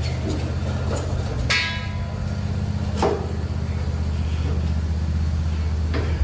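Tractor engine running at a steady speed, with a ringing metallic clang about a second and a half in and short sharp knocks near three and six seconds.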